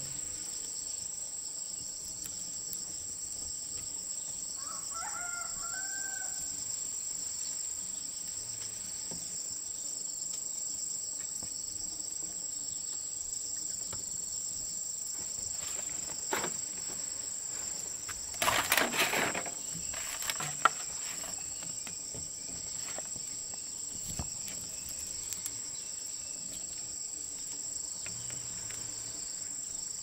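Insects drone steadily at a high pitch throughout. A rooster crows once about five seconds in. Near the middle comes a brief, louder noise, and a few faint knocks are heard.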